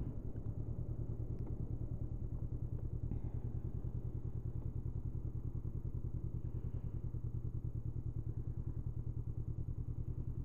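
Honda CB500F's parallel-twin engine running steadily under way, an even pulsing beat that holds the same level throughout.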